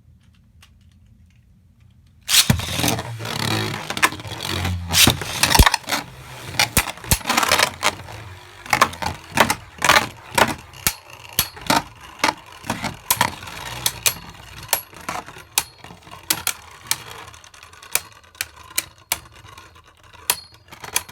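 Beyblade Burst tops launched into a plastic stadium about two seconds in, then spinning and clashing with a rapid run of sharp plastic clacks that grow sparser and quieter toward the end.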